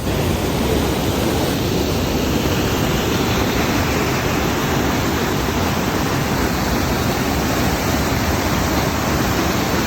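Kaaterskill Falls, a large waterfall, rushing with a loud, steady, even noise of falling water.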